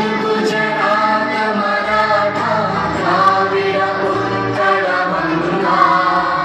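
A group of children singing together in unison in long held notes, with small pitch slides between them. The singing stops right at the end.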